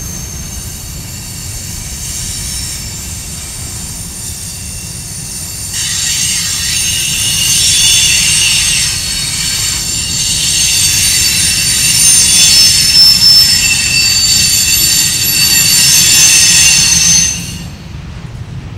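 Empty covered hopper cars of a freight train rolling past with a steady low rumble. About six seconds in, the wheels start a loud squeal of several high-pitched tones at once, which stops suddenly near the end.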